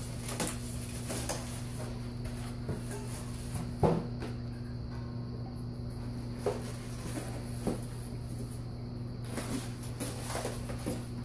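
Scattered knocks, taps and rustles as the smoker's metal parts and white styrofoam packing are handled and pulled out of the box, the sharpest knock about four seconds in, over a steady low hum.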